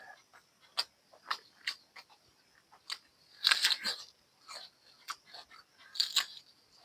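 Close-miked chewing and crunching of a mouthful of buffalo-meat curry with rice, in irregular wet clicks and crunches, loudest about halfway through.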